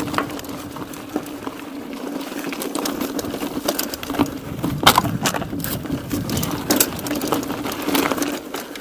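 Mountain bike riding over a rough dirt track: a steady buzz from the bike under a stream of irregular rattles and knocks as it goes over bumps, with a few harder knocks about five and seven seconds in.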